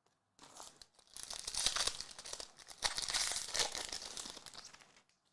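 Foil wrapper of a basketball card pack being torn open and crinkled, a dense run of crackling that goes on for about four seconds.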